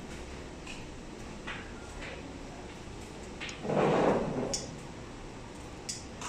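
Low steady hum of a vertical plastic injection moulding machine warming up, with a few scattered sharp clicks and one short, louder noisy burst about four seconds in.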